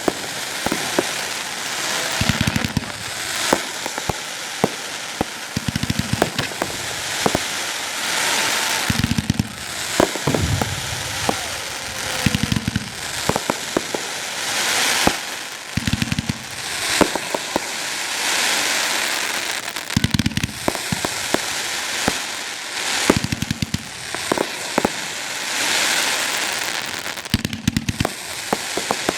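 Fireworks going off: a steady run of sharp pops and crackles, with a hissing swell every two to three seconds.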